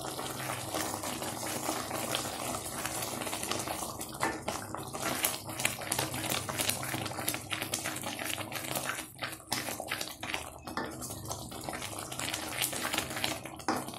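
Thick pumpkin-and-jaggery halwa bubbling in a metal kadai while a wooden spatula stirs and scrapes through it, working in freshly added ghee at the finished halwa stage.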